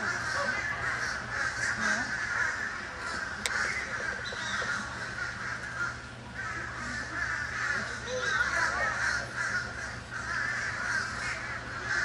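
A flock of wading birds calling over one another: a dense, continuous chatter of many overlapping calls that dips briefly about six seconds in.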